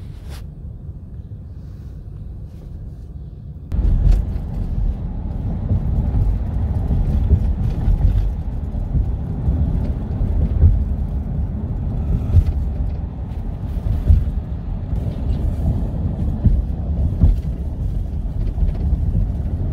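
Low rumble of a moving vehicle, with uneven wind noise on the microphone. It gets abruptly louder about four seconds in.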